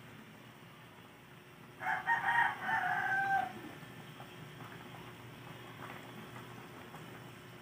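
A rooster crows once, about two seconds in, a call of under two seconds that ends on a held note.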